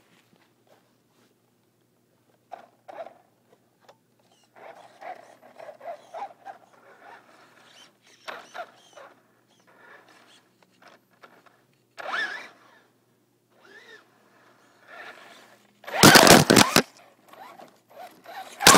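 Traxxas Slash 4x4 brushless RC truck driving on grass: faint, on-and-off motor and tyre noise, then, about three seconds before the end, a sudden loud, harsh racket in several bursts as the truck reaches the ground-level camera and knocks it over.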